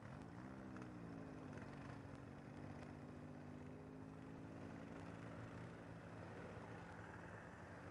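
ATV engine revving briefly near the start, then idling steadily.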